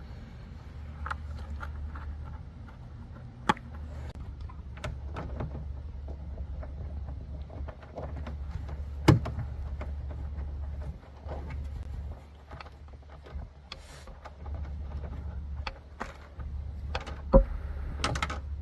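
Scattered clicks and knocks of hands fitting a car door's lower molding and its fasteners, with three sharper knocks, over a steady low hum.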